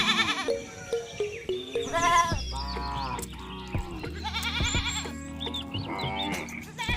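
Several bleating calls from farm animals, wavering and overlapping one another, over background music.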